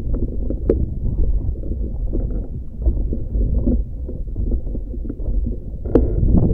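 Strong wind buffeting the microphone while sailing a Tiwal 3 inflatable dinghy: a steady low rumble, with a sharp knock about a second in and another near the end.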